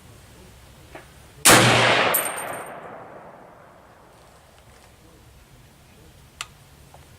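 A single shot from an M1A rifle firing a .308 175-grain hollow point boat tail round, about a second and a half in, with its report echoing and fading over about two seconds. A small click comes just before the shot and a sharp tick a few seconds after it.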